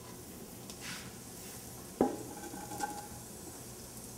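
Chopped onion scraped off a wooden cutting board into a stainless steel pot of warm oil and butter, with a low frying sizzle throughout. About two seconds in comes one sharp clang against the pot that rings briefly, followed by a few lighter knocks.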